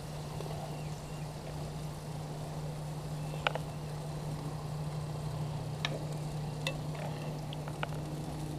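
Thick teriyaki chicken breasts sizzling on a propane cooker, with a few sharp pops of spattering fat, over a steady low hum.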